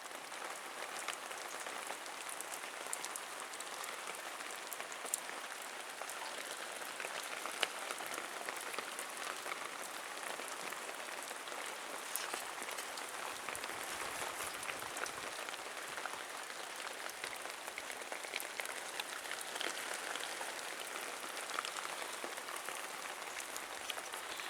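Steady rain pattering on a surface, with scattered sharper drop ticks.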